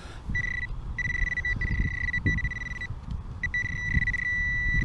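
Metal detector's target tone: a steady high beep at one pitch, sounding briefly, then for about two seconds, then again from about three and a half seconds in, as the coil passes over a buried metal target that gives a strong signal. Low rumble from wind or handling underneath.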